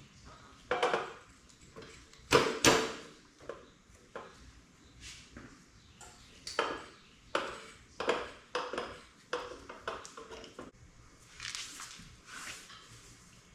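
Irregular metallic clanks and clinks of motorcycle parts and hand tools being handled, each with a short ring; the two loudest come a little over two seconds in, then they thin out into softer rustling near the end.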